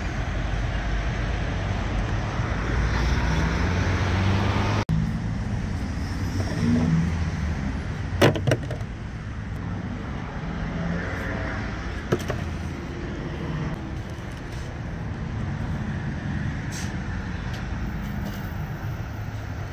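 Steady rumble of road traffic and vehicle engines, with a few sharp clicks about eight seconds in and one more around twelve seconds.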